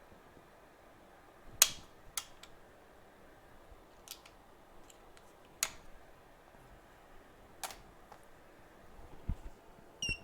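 Scattered sharp clicks and taps of small hand tools being handled on a workbench, the loudest about one and a half seconds in, with a short metallic ping near the end.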